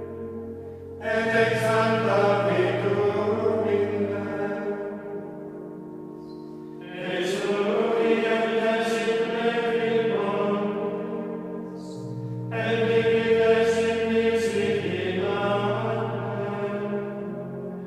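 Choir of Benedictine monks singing Gregorian chant in unison, in three phrases beginning about one, seven and twelve seconds in, each swelling and then fading, with tones lingering between phrases.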